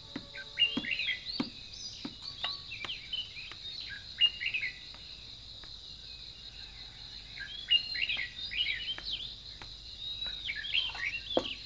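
Small birds chirping on and off over a steady, high-pitched insect drone, with a few sharp clicks scattered through it.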